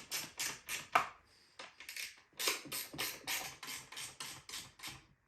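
Bolts being tightened with a hand wrench: a quick run of metallic clicks, about five a second, with a short pause about a second in.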